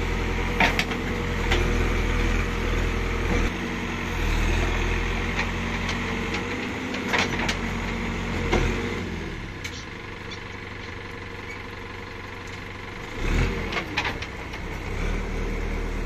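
Backhoe loader's diesel engine running as the boom works, its pitch rising and falling with the load, with scattered sharp knocks. The engine eases back about nine and a half seconds in and revs up again near the end.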